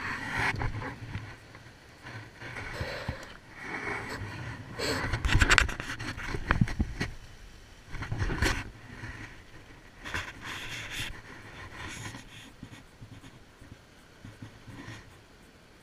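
Close, irregular handling noise: rustling and scraping with sharp clicks and knocks as hands rummage in a bait bucket and handle the hook and crab bait, close to the camera's microphone. It dies down near the end.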